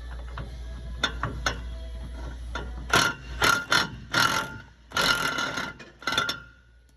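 Ratchet wrench turning a nut on a rear shock absorber mount: a few single clicks, then from about three seconds in several short bursts of rapid ratchet clicking.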